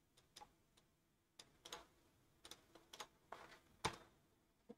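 Faint, scattered clicks of a computer mouse and keyboard, about eight in all, the loudest a little before the end, as a command is copied and entered into a terminal.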